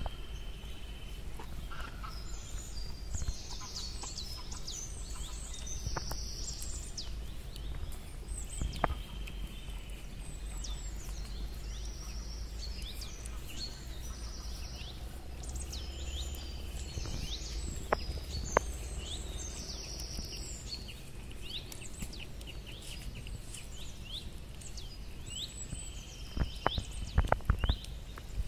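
Wood campfire crackling, with occasional sharp pops and a quick run of the loudest pops near the end. Behind it, birds keep chirping and singing, over a low steady rumble.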